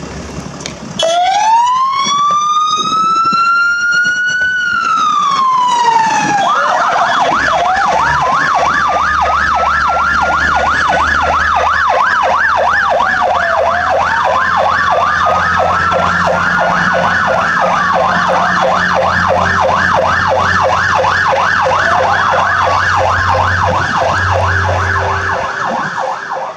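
Fire service vehicle sirens sounding over a low engine hum. A slow wail rises and falls for the first few seconds; then a fast yelp sets in alongside a second slow wail, and both stop just before the end.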